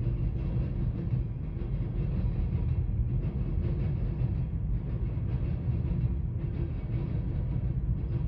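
Empty covered hopper cars of a freight train rolling past, with a steady low rumble of steel wheels on the rails.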